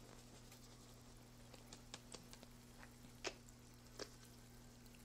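Near silence with a low steady hum and a few faint, light ticks: dried oregano being rubbed between the fingers and dropping into a plastic food processor bowl.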